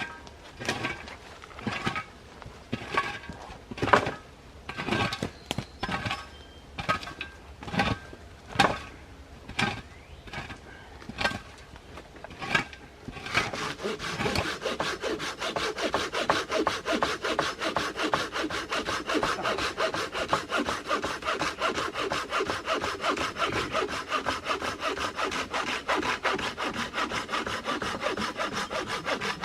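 Silky Gomboy folding hand saw cutting wood. For about the first 13 seconds it makes slow, separate strokes, about one a second, as the cut is started; then it settles into fast, steady back-and-forth strokes.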